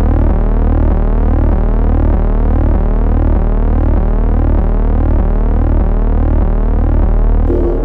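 Loud synthesized sound-design drone: a deep throb pulsing about twice a second under layered tones that keep gliding upward and repeat, like an endlessly rising tone.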